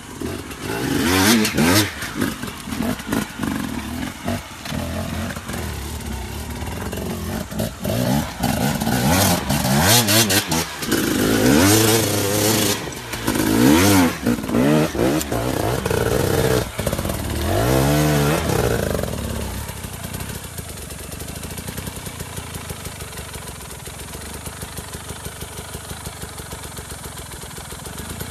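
Enduro dirt bike engine revving hard in repeated rising and falling bursts, with sharp knocks and clatter from rocks. About two-thirds of the way in it settles to a lower, steady run with an even pulse as the bike crawls over rocks.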